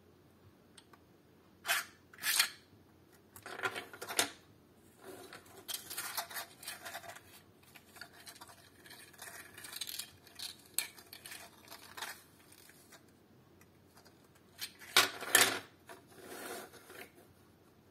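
Nested layers of a grey PLA 3D-printed fidget star sliding and clicking against each other as it is pushed out into a cone and pressed flat by hand. The sound comes in short bursts of plastic clatter and scraping, loudest a couple of seconds in and near the end.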